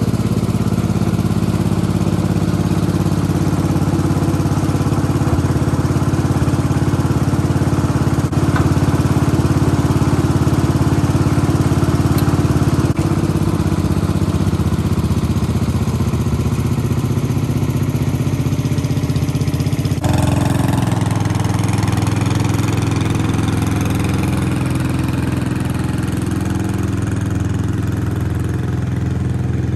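Vintage garden tractor's engine running steadily while it tows a dump cart loaded with firewood. The engine note changes abruptly about twenty seconds in.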